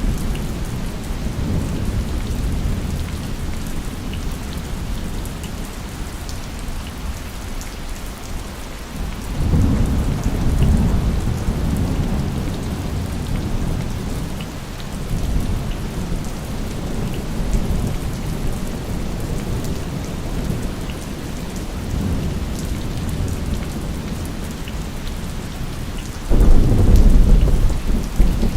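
Steady rain with thunder: a low rolling rumble about nine seconds in, and a sudden, louder clap of thunder near the end.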